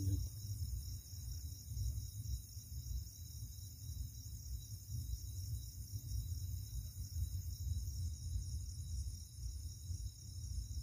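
Night chorus of crickets and other insects: steady high-pitched trilling that never stops, over a constant low rumble.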